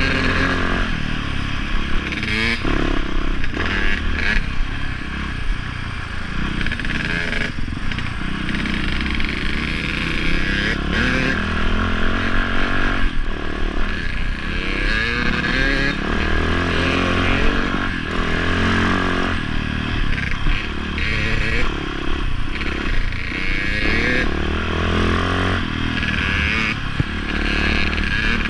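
Dirt bike engine running under load on a rough uphill trail, its revs rising and falling with the throttle, with some clatter from the bike over rocky ground.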